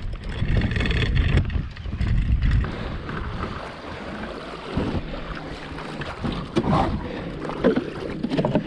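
A fishing kayak being launched: its hull scrapes over gravel, then water splashes and laps against it, with wind buffeting the microphone. The loudest, rumbling part comes in the first couple of seconds, and it settles into a steady wash of water with a few sharp splashes near the end.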